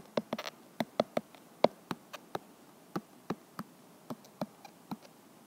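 Stylus tapping on an iPad's glass screen during handwriting: a string of short, sharp, irregular clicks, about three or four a second.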